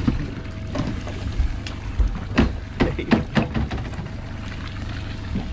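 Low steady rumble of wind and water around a small boat, with a faint steady hum and a scattering of short knocks and splashes through the middle.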